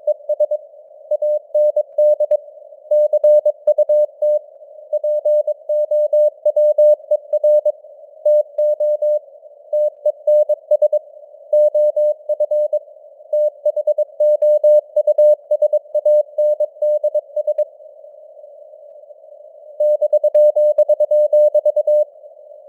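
Morse code (CW) sent at 22 words per minute as a single mid-pitched tone keyed on and off in dots and dashes. A faint hiss of simulated radio noise sits around it. The keying pauses for about two seconds near the end, then resumes.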